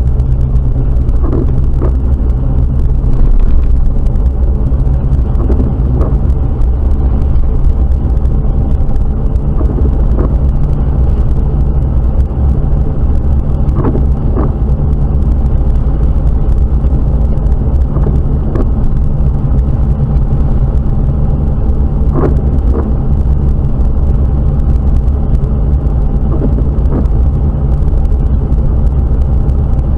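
Jeep Wrangler TJ driving, heard from inside the cabin: a loud, steady low rumble of engine and road noise, with a faint short sound every few seconds.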